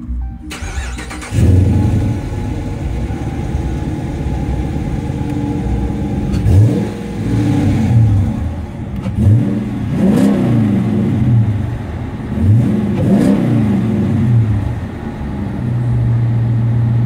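Dodge Charger R/T's 5.7-litre Hemi V8 through a Gibson cat-back exhaust, starting about a second in with a loud flare. It is then revved several times, each rev rising and falling, before settling into a steady idle near the end.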